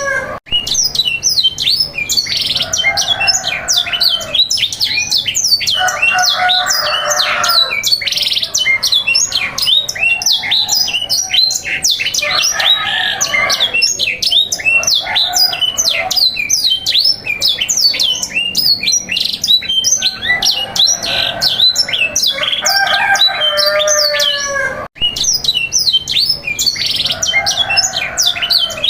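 Domestic canary song played to young birds as training material: dense, rapid high trills and chirps that never stop, with lower squawking calls returning every few seconds. The sound breaks off for an instant twice, about half a second in and again near the end.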